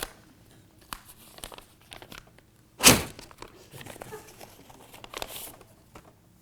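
Paper envelope being torn open and handled: scattered crinkles and rustles, a short tearing rustle a little after five seconds, and one sudden loud burst of noise, the loudest sound, about three seconds in.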